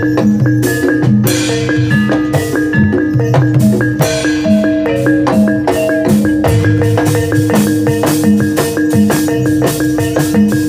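Javanese gamelan playing for a jaranan horse dance: mallet-struck metallophones ringing out stepped melodic notes over a held low note, driven by sharp hand-drum strokes. The strokes come faster from about six and a half seconds in.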